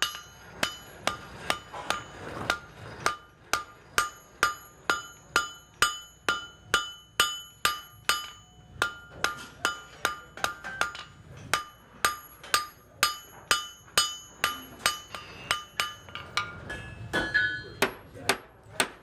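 Blacksmith's hammer striking hot iron on an anvil in a steady rhythm of about two blows a second, each blow ringing, as the iron is flattened.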